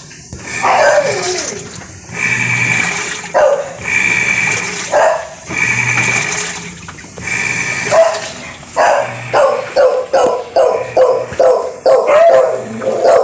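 A dog barking and yelping repeatedly, quickening to about two barks a second in the second half.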